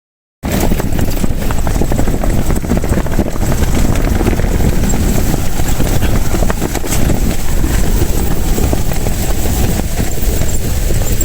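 Strong gusting wind buffeting the microphone: a loud, continuous low rumble with hiss.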